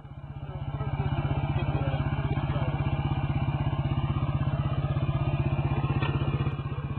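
Motorcycle engine running at a steady, evenly pulsing idle. It grows louder over the first second and drops a little near the end.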